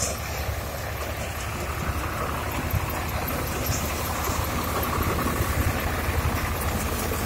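Tractor-driven Rahul Laxmi paddy thresher running as paddy sheaves are fed in: a steady low engine drone with threshing noise over it, a little louder in the second half.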